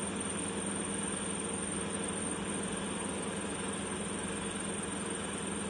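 Three-phase slip-ring induction motor running steadily at about 1300 rpm with part of its rotor resistance cut out, a steady hum and whir, its shaft touched by the tip of a contact tachometer.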